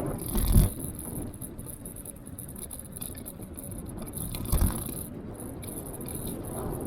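TeeWing Mars XTR electric scooter riding on a wet road: steady tyre and rattle noise with a high hiss, and two low thumps, about half a second in and near five seconds in.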